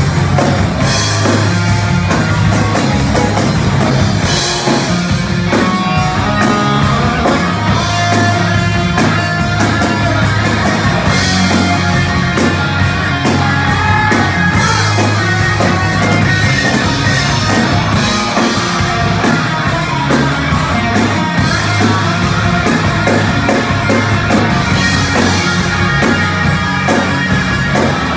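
Live heavy metal band playing loud: distorted electric guitars, bass guitar and a drum kit. Cymbal crashes ring out every few seconds.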